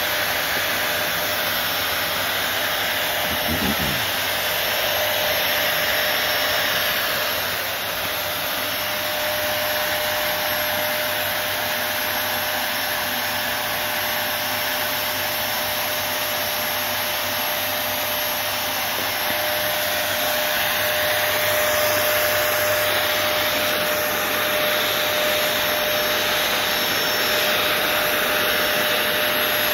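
Delta ULV cold fogger (5-litre disinfection sprayer), its electric blower motor running steadily while pushing out a fine mist: an even rushing hiss with a steady whine.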